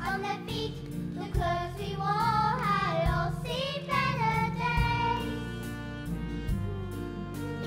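Group of children singing together over an instrumental accompaniment; the voices stop about five seconds in and the instrumental music carries on alone.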